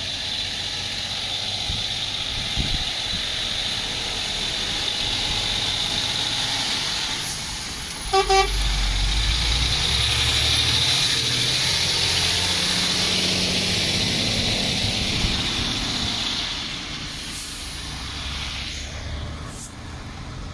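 Lorry engine running close by, growing louder through the middle and fading near the end, with a short double toot of the truck's horn about eight seconds in, followed by a deep rumble.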